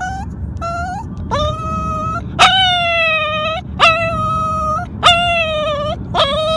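A puppy shut in a crate crying to be let out: about six drawn-out, high whining howls in a row, each swooping up sharply and then held, the loudest about halfway through. Under them is the low steady rumble of a car.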